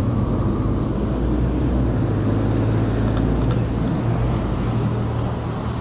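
City street traffic: a steady low rumble of cars running along the street, with two faint clicks about three seconds in.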